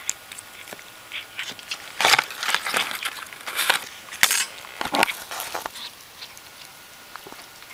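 Paper wrapper crackling and crunching in irregular bursts as a cat paws at and tears apart a chicken nugget on it. The noise is loudest in the middle few seconds.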